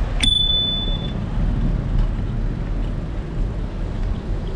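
A bicycle bell rings once just after the start, a single ding that rings on for just under a second. Under it runs the steady low rumble of wind and road noise from the moving bike.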